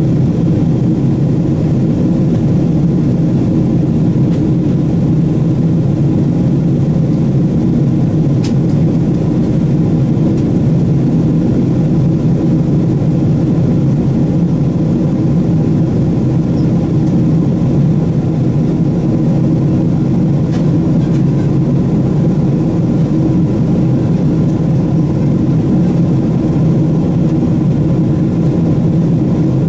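Steady engine and airflow noise inside the cabin of an airborne Boeing 777-300ER, its GE90-115B turbofans running at an even power, with a faint click about eight seconds in.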